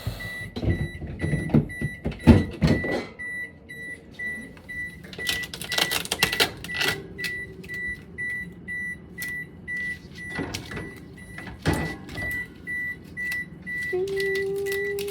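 A new refrigerator's electronic panel beeping over and over, a short high beep about two or three times a second, which is put down to the settings being reset each time it is pressed. Sharp knocks and plastic rattles of handling come in among the beeps.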